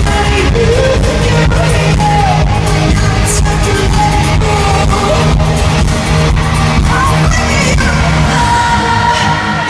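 A live pop concert: the band plays loudly with a steady drum beat and heavy bass, and a voice sings the melody over it.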